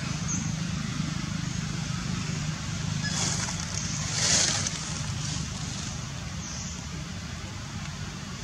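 Outdoor background: a steady low rumble with an even hiss over it, swelling into a brief louder hiss a little after four seconds in.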